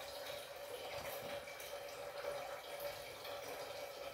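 Faint, steady kitchen background: a low constant hum with a light hiss and a few small scattered clicks.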